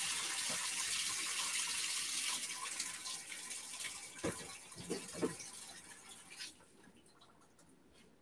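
Kitchen tap running into a sink, with a few light knocks of things handled under the water; the water shuts off about six and a half seconds in.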